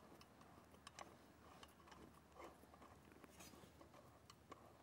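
Near silence with a few faint clicks and taps as hands handle the plastic side cover of a Gast regenerative blower.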